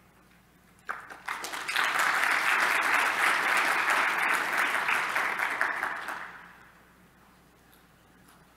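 Audience applauding. A few separate claps come about a second in, swell quickly into full applause, then die away over the following seconds.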